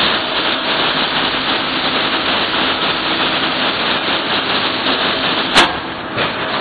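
Pharmaceutical tablet and capsule lifting machinery running: a steady, dense mechanical noise with a faint hum in it, and one sharp click a little before the end.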